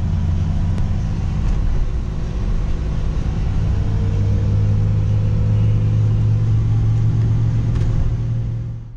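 2005 Mini Cooper S R53's supercharged 1.6-litre four-cylinder pulling at highway speed, heard from inside the cabin: a steady low drone with road rumble. The engine note rises gradually from about halfway through.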